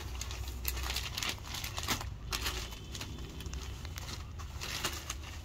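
Silk cotton saree fabric rustling as it is handled and folded, in a run of irregular soft swishes and crinkles.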